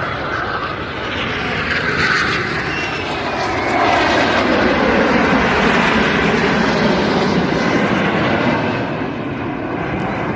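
Aircraft engine noise as a plane flies past, its pitch falling as it goes by and loudest in the middle of the pass.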